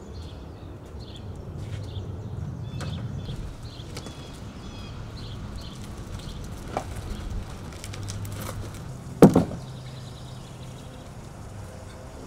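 Low rumble of a loaded flat cart's wheels as it is pushed across the yard with an elm slab on it, with one sharp knock about nine seconds in.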